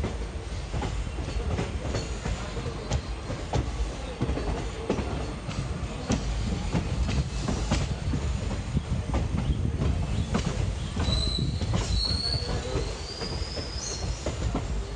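Passenger train running on the track: a steady rumble with irregular clacks of the wheels over the rails. About eleven seconds in a high wheel squeal starts, wavers for about three seconds and rises in pitch near the end.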